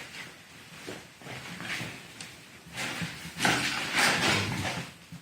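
Firewood being picked up and handled for the fireplace: a few light wooden knocks, then louder scraping and rustling of logs between about three and five seconds in.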